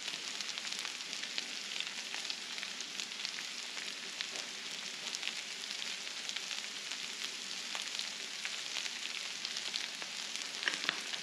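Shredded hash browns and potatoes frying in butter on a Blackstone flat-top griddle: a steady sizzle with many small crackles and pops.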